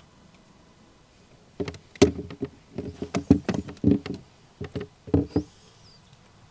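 Irregular knocks and clicks from a screwdriver and a self-tapping screw clattering against a plastic bilge pump mount in a boat's bilge, as the screw is coaxed to stand upright so the Phillips bit can engage it. The knocks begin about a second and a half in and run for about four seconds, with a single sharp click at the very end.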